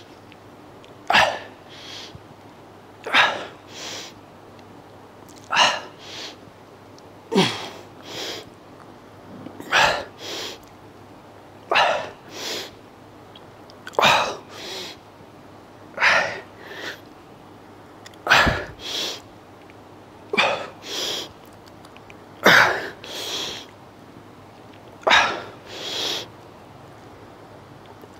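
A man's sharp, forceful exhalations with each rep of a dumbbell curl, about one every two seconds, each followed by a softer breath. Some carry a short grunt. This is the strained breathing of a last set taken close to failure.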